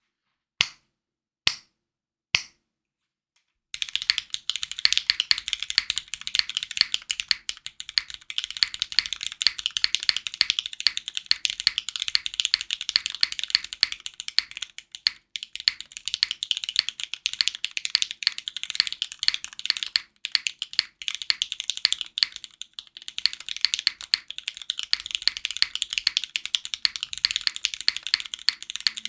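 Three sharp clicks about a second apart, then fast, continuous typing from about four seconds in on a Keycult No.1 60 mechanical keyboard with Cherry MX Black linear switches, GMK keycaps and an aluminium plate, pausing briefly a few times.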